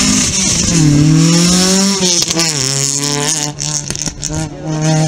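Opel rally car's engine revving hard as it drives past and pulls away. The pitch climbs, drops at a gearshift about two seconds in, wavers, and then holds steady.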